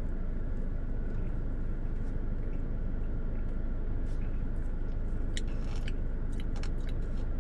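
Soft eating sounds as a milkshake is spooned up and eaten, over the steady low hum of a car interior. A few light clicks come in the second half.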